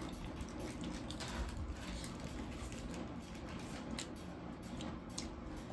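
Faint eating sounds: chewing with scattered small clicks and taps, over a steady low room hum.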